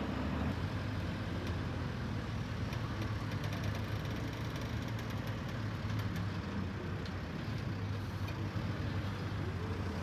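Diesel engine of a JCB telehandler running steadily, a low even drone.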